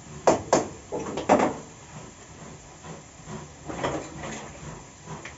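A frying pan hissing steadily on a gas stove after water has been added, with loud scraping strokes in the first second and a half. About four seconds in come a few rasping strokes of zucchini on a box grater.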